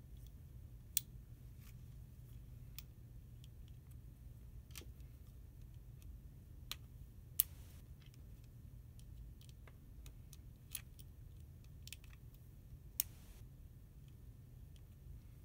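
Plastic building-kit beams and connector pins clicking and tapping as they are handled and pushed together, with sharp, irregular clicks a second or two apart, the loudest about seven seconds in, over a low steady hum.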